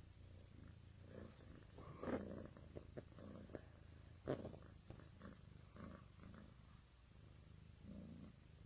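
A domestic cat purring, faint and steady, with a few short louder sounds, the strongest about two seconds in and again about four seconds in.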